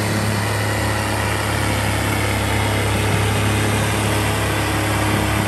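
Tractor diesel engine running steadily, with a constant low hum and no revving.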